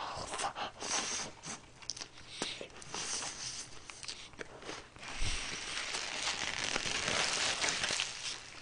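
A bite into a burger and chewing, with the burger's shiny paper wrapper crinkling and rustling in the hands: short crackles at first, turning into a dense, continuous crinkling in the second half.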